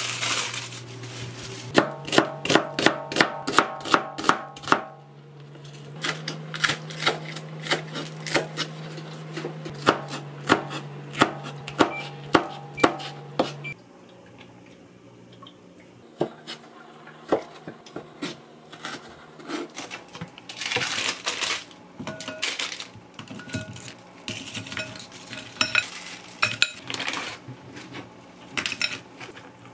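Pieces of squid, frozen shrimp and frozen clam meat dropped by hand into a glass mixing bowl, with many clinks and knocks against the glass. Soft background music plays underneath; its low held notes stop about halfway through.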